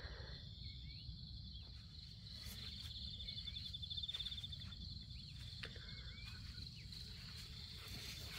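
Insects chirring steadily at a high pitch, with a fast trill for a few seconds in the middle, a few short bird chirps, and a low rumble underneath.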